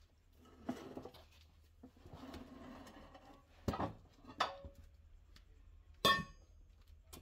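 A steel tire-changer bar and stand clanking and scraping as a small turf tire is worked off its steel rim. There are several knocks with rubbing in between, and the loudest is a ringing metal clang about six seconds in.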